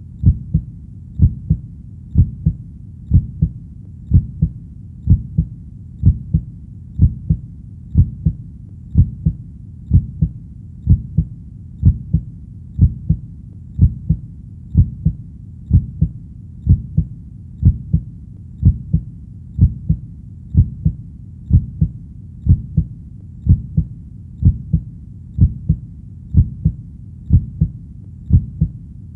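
Heartbeat sound: a steady, low-pitched lub-dub, each beat a double thump, repeating evenly about once a second.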